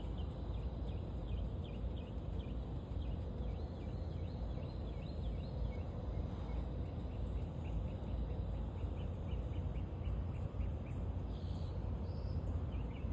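Birds chirping in quick, repeated short notes over a steady low rumble.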